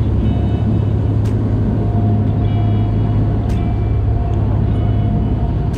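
Fishing boat's engine running steadily under way: a constant low hum, with a couple of faint clicks on top.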